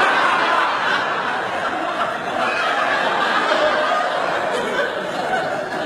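Studio audience laughing, loudest at the start and easing off toward the end.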